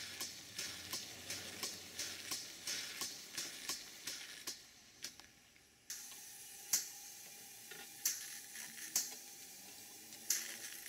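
Small model steam engines running: a vertical model steam pump puffs and clicks at about three strokes a second over a steam hiss. About six seconds in it gives way to another engine, with a faint steady tone and slower, irregular sharp clicks.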